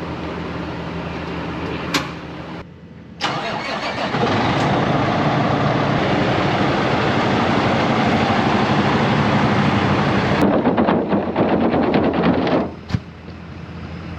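A vehicle engine running, idling at first and then much louder for about eight seconds before dropping back to a lower level, with a sharp click near the start and a knock near the end.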